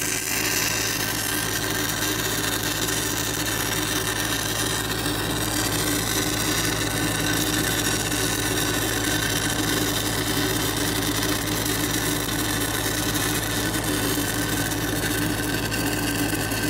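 Stick-welding arc from a 1/8-inch 6010 electrode running the root pass on 6-inch schedule 40 steel pipe: a steady, noisy hiss, with a Lincoln SA-200 engine-driven welder's engine running steadily underneath under load.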